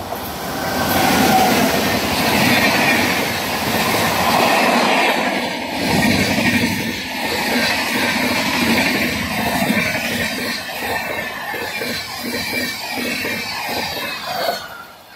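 Express passenger train passing close at speed behind an electric locomotive: a loud rush of the locomotive and coaches, with the wheels' clickety-clack over the rail joints coming through in the second half. The sound cuts off sharply near the end.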